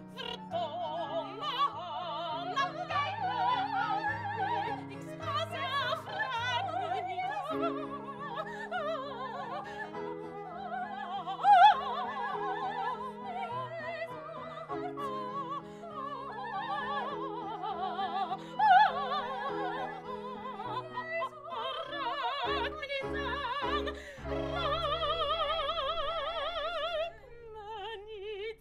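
A woman singing opera with a wide vibrato over sustained instrumental chords.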